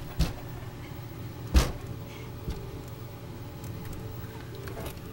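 Two sharp thumps about a second and a half apart, the second louder, then a couple of fainter knocks, over a steady low hum.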